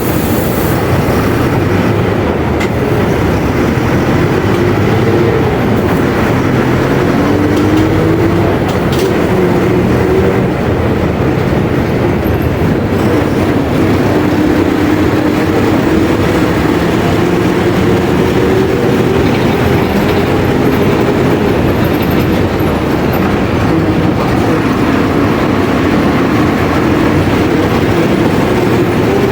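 Mercedes-Benz OF 1721 city bus's six-cylinder diesel engine running as the bus drives, its note rising and falling with speed and gear changes over a steady running rumble. The bus is an old, worn one that its recorder calls scrap.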